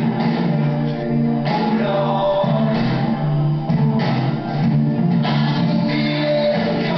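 Rock song with singing, held chords and drums, the drum hits and chord changes landing about every second and a quarter.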